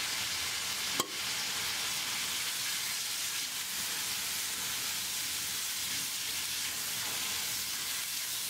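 Pork slices, garlic scapes and wood ear mushrooms sizzling in a wok as a spatula stir-fries them, a steady frying hiss. One sharp click about a second in.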